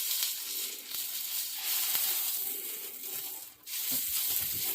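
Pancake batter sizzling in butter in a hot skillet, a steady hiss that dips briefly about three and a half seconds in.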